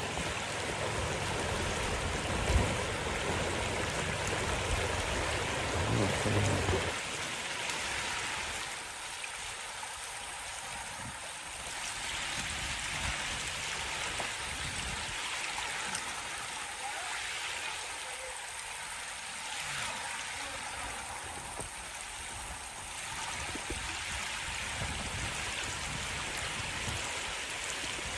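River water rushing steadily, with a low rumble under it for the first seven seconds or so and a single bump about two and a half seconds in.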